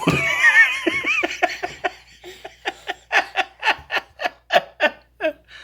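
A person laughing: a high wavering laugh at first, then a run of short giggles about four a second that fades out near the end.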